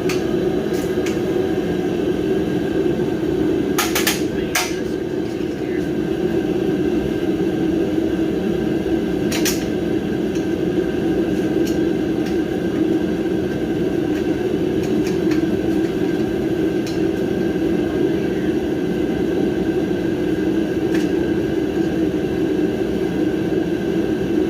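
A steady hum of a running blower or fan throughout, with a few sharp metal clicks of wrenches on the welding cart's bolts: a pair about four seconds in, one near ten seconds and one near the end.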